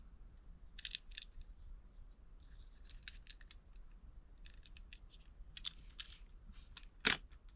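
Small diecast model cars being handled: light scattered clicks and scrapes of metal and plastic, with one sharper click near the end.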